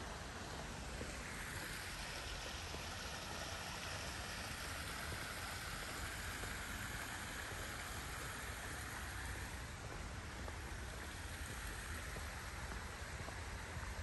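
Steady rushing of running water, like a small stream, swelling slightly midway, with a low rumble underneath.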